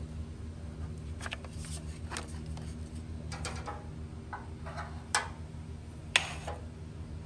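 Small metal bracket plate being handled and set against the top of the radiator and its support: scattered light clicks and taps, with two sharper clicks about five and six seconds in, over a steady low hum.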